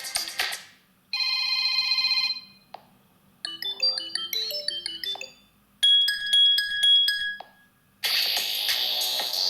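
Xiaomi Redmi A5 smartphone playing its built-in ringtones and alert tones one after another, each cut short after a second or two with a brief silence between. One tone ends just after the start. Then come a steady beeping tone, a quick run of melodic notes and a bright chiming tone with regular ticks. A fuller, busier tone begins near the end.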